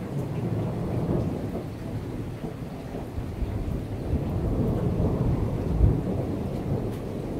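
Thunder rumbling over steady rain. The rumble builds through the middle, with a short, heavier low boom a little before six seconds in.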